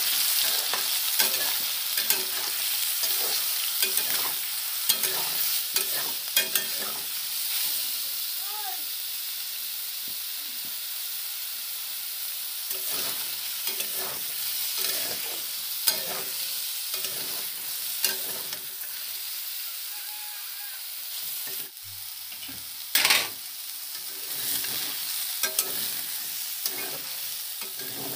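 Soya chunks frying in oil in a metal pan (kadai), with a steady sizzle, while a spatula stirs them, scraping and knocking against the pan many times, with one louder stroke late on.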